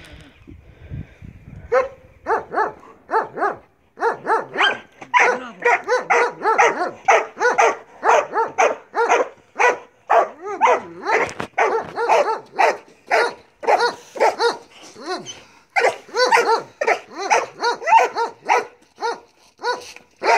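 Belgian Malinois barking over and over, about two barks a second, with a short break near the three-quarter mark; it is barking at an approaching helper while held back on leash in bite-work training.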